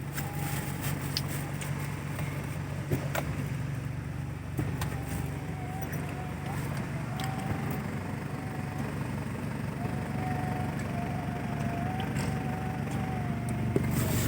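Toyota Land Cruiser Prado's 1KZ-TE 3.0-litre turbo diesel engine running steadily as a low drone, with a faint wavering whine above it and a few light clicks.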